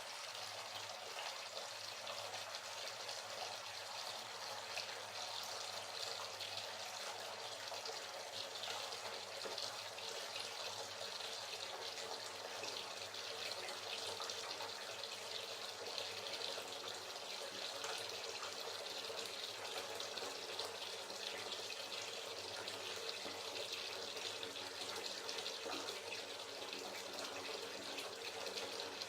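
Hot water running steadily from a tap into a bathtub that is filling, a constant splashing rush.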